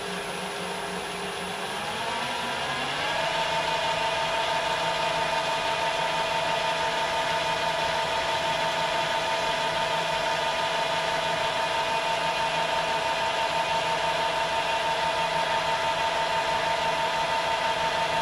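Metal lathe running, its motor whine rising in pitch about two seconds in as the spindle speed is turned up, then holding a steady high whine. The part is spinning for an edge to be broken on the turned piston.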